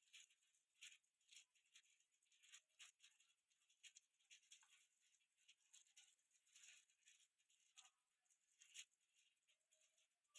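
Near silence, with faint, scattered light clicks and scratches at irregular intervals.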